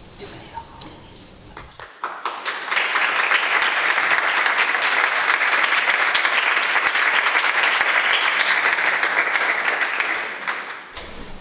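A small group applauding: the clapping starts about two seconds in, holds steady and dies away near the end. It welcomes a newly sworn-in councillor.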